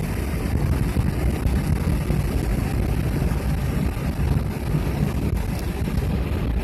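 Steady rumble of a moving car's road and engine noise, heard from inside the cabin.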